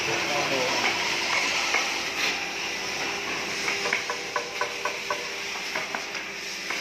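Steady hiss and low hum of workshop machinery. In the second half comes a quick run of light taps or clicks, about four or five a second.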